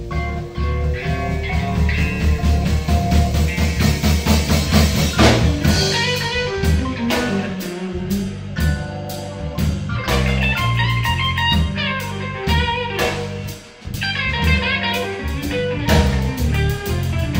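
Live blues band playing: electric guitar leading over a Korg electric keyboard and a Sonor drum kit, with quick guitar note runs in the second half and a brief stop just before the last few seconds.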